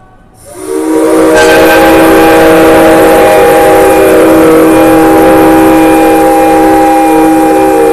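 Train whistles and horns of the exhibited locomotives sounding together as a very loud, held chord of several tones, starting about half a second in; higher tones join about a second later, and it carries on without a break.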